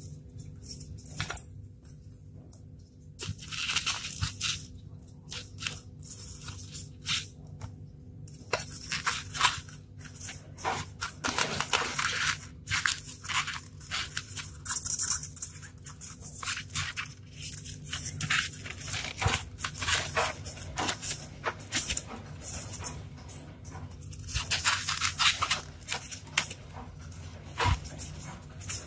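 Hands rubbing, pressing and scraping a block of polystyrene foam, giving irregular squeaky, crunchy scratching sounds as a battery is pushed into the foam.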